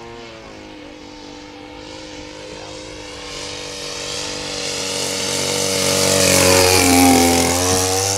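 Radio-controlled model warbird's propeller engine running at speed in a low pass, growing louder as it approaches and loudest about seven seconds in as it passes, its pitch bending as it goes by.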